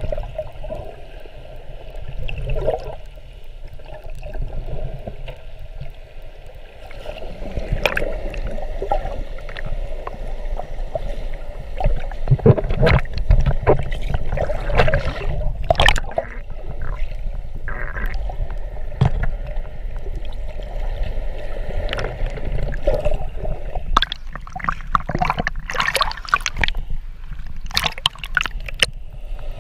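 Water gurgling and sloshing, muffled as heard with the microphone underwater, over a low steady rumble, with louder splashes and bubbling several times through the middle and in a cluster near the end.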